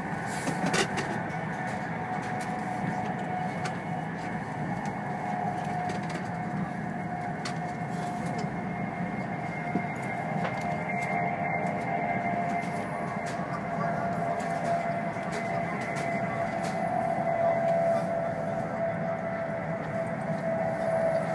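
Steady running noise of a high-speed train heard inside the passenger cabin, with a faint wavering whine over the rumble. There is a brief click under a second in.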